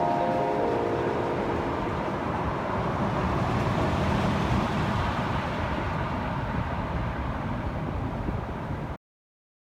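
Steady outdoor street-traffic noise that cuts off abruptly near the end, with the last notes of an electric piano dying away over the first second or so.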